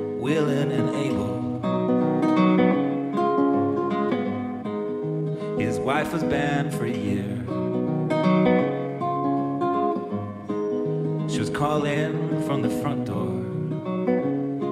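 Solo acoustic guitar played live: a picked, ringing melody over bass notes, broken three times by a brief, bright strummed flourish.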